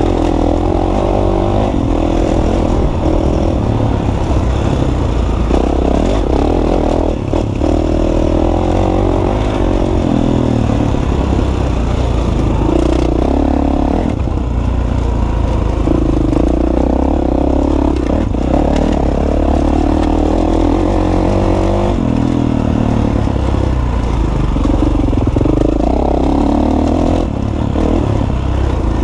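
Dirt bike engine running under load while riding a gravel track, heard from on the bike itself. The engine note rises and falls repeatedly with the throttle, with some clatter and scraping underneath.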